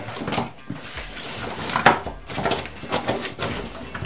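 Hands rummaging inside a large fabric kit bag full of diving gear: irregular rustling and scraping of the bag's material, with light knocks of items shifting inside.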